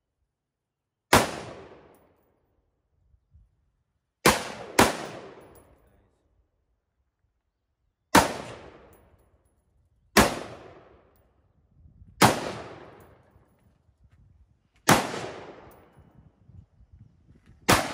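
Single shots from two semi-automatic AR-15-pattern rifles, a Colt AR15 A4 and a Sig M400 Tread: eight sharp reports at uneven intervals, two of them about half a second apart. Each crack trails off in a long echo.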